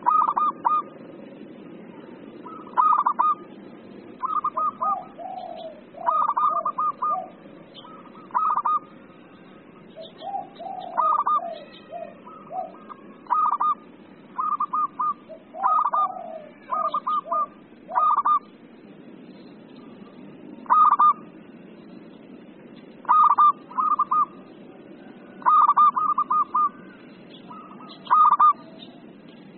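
Zebra dove (perkutut) cooing in excited, fired-up bursts: short runs of quick staccato coos repeated every second or two, with lower warbling notes between them in the first half. A steady low hiss lies underneath.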